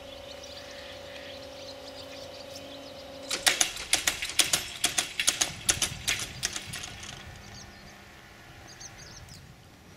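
Level crossing barrier drives humming steadily as the booms lower, cutting off a little over three seconds in when the booms reach the down position. About three seconds of loud, irregular metallic clattering follows as the booms and their hanging grille settle and rattle against their rests.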